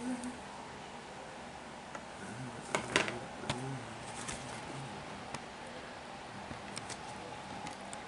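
A few sharp clicks and knocks, the loudest a cluster about three seconds in, with faint low humming or mumbling from a man's voice around them.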